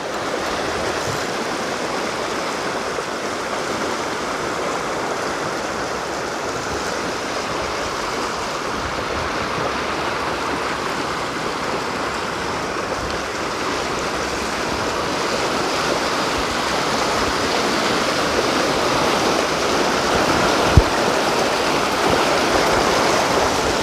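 Water rushing steadily over a weir spillway running high, a continuous roar of flow. A single short knock sounds near the end.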